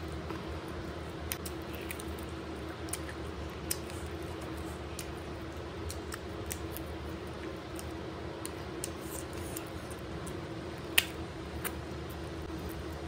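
Close-up eating with the fingers: scattered short wet clicks and squishes of chewing and handling rice and chicken, with the sharpest click about eleven seconds in. A steady low hum runs underneath.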